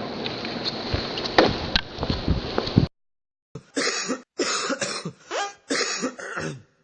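A person coughing, a run of about six coughs in quick succession. Before it, room noise with a few clicks and knocks cuts off suddenly.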